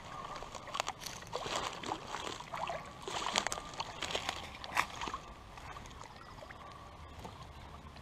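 Water sloshing and splashing in shallow stream water as a hooked brown trout is drawn in and grabbed by hand, over the steady running of the stream. The splashes are irregular and die down after about five seconds.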